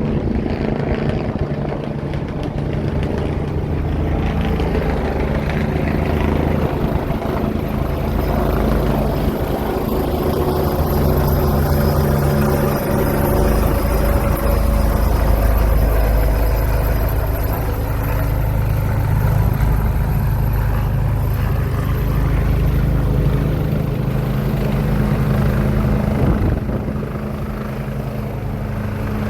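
Helicopter hovering close by, its rotors and engine running steadily with a thin high whine over the low rotor noise, during a winch transfer of the ship's pilot.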